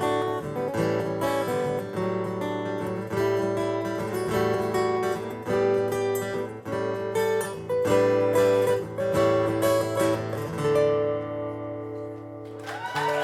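Acoustic guitar playing the strummed and picked instrumental close of a folk song, with a final chord left ringing. Audience cheering breaks out right at the end.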